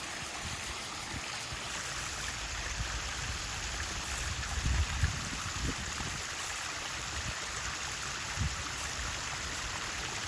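Water from a backyard koi pond's waterfall running and splashing steadily. A few brief low thumps come about halfway through.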